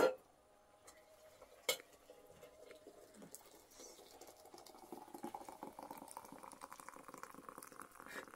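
Faint crackling and bubbling of hot liquid among tea kettles and a pot, growing from about four seconds in. There is a sharp knock at the very start and a click just under two seconds in.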